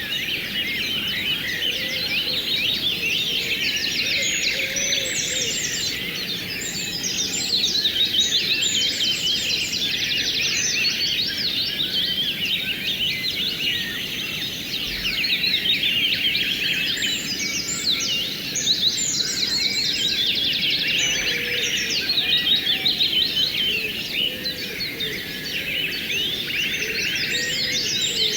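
A dense chorus of many small birds chirping rapidly, swelling and easing in waves, over a steady rush of flowing river water.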